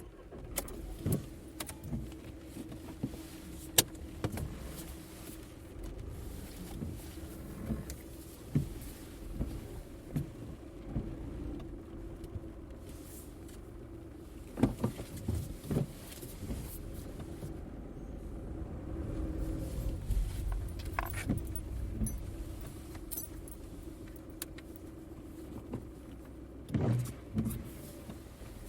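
A car running steadily, a low rumble with a held hum, with many scattered clicks and knocks over it and a louder cluster of knocks near the end.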